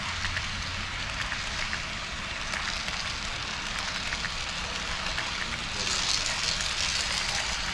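HO scale model train running along the layout track: a steady rolling noise with many small clicks. It grows louder and more hissing about six seconds in.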